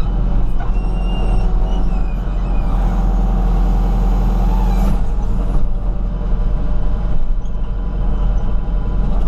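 Komatsu WB140 backhoe loader's diesel engine running steadily under hydraulic load as the hoe digs out old asphalt, with faint whines over the deep engine rumble.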